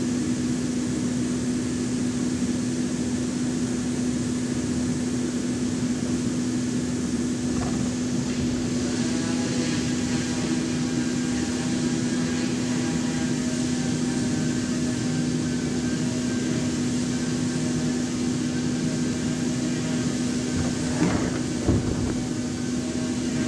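Handheld electric power saw running with a steady hum. More tones join about nine seconds in, and two short knocks come near the end.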